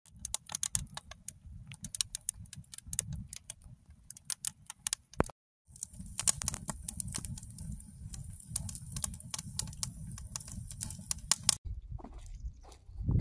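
Small campfire of twigs and pine needles in a steel fire ring, crackling and popping irregularly over a low rumble. The sound drops out briefly about five seconds in.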